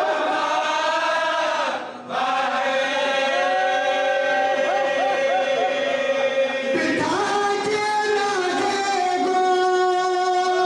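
Marsiya (Urdu elegy) chanted by several men's voices together, unaccompanied, in long held, ornamented notes. There is a short breath break about two seconds in, and a new phrase begins near seven seconds.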